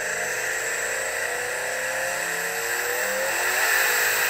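Twin-turbocharged Ford Mustang GT's 5.0 Coyote V8 on a chassis dyno during a pull: the engine note climbs steadily under full load over a strong hissing rush, and grows louder toward the end.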